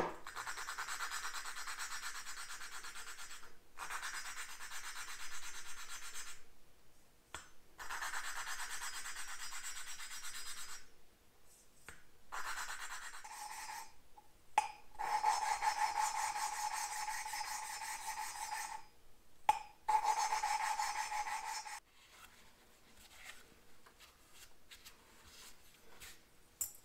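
Valve being lapped into its seat in a 1973 Honda CL125 cylinder head: lapping compound grinding between the valve face and the seat as the suction-cup lapping stick is spun back and forth between the palms. It comes in six spells of a few seconds with short pauses, and a steady squeal joins the grinding in the later spells.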